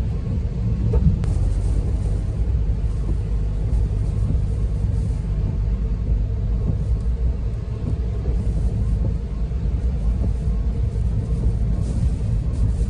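Strong typhoon wind buffeting the microphone: a steady low rumble, with a faint hiss that rises briefly now and then.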